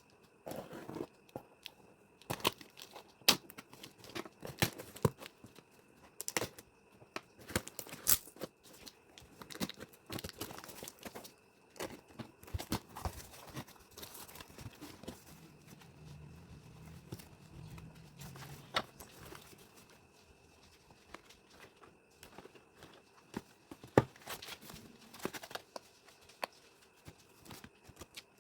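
Packaging being torn open and handled: irregular tearing, crinkling and sharp clicks from wrapping.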